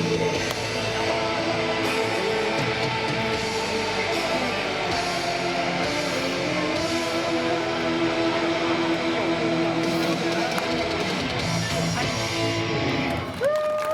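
Live rock music amplified over a PA, with distorted electric guitar. The song comes to its end near the close.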